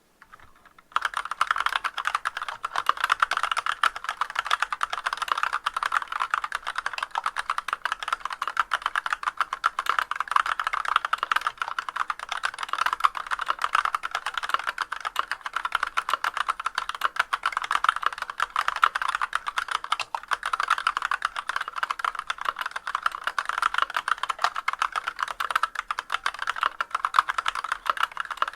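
Fast, continuous typing on a Massdrop CTRL High-Profile mechanical keyboard with Artbox Black linear switches and Leopold keycaps, starting about a second in. The board is stock, with unlubricated stabilizers and no sound-dampening foam.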